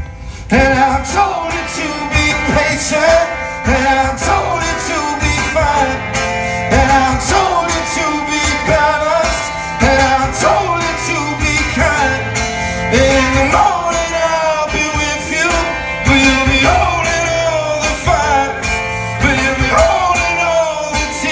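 Live band music heard from within the crowd through the festival PA: strummed guitar under a man singing. The full band comes in loudly about half a second in.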